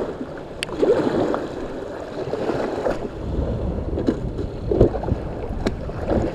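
Outdoor water and wind noise with a few sharp knocks. About three seconds in, a low rumble of wind on the microphone sets in.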